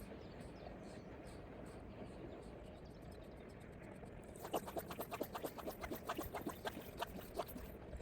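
Fly reel's ratchet clicking in a quick, even run for about three and a half seconds, starting about halfway in, over a steady background hiss.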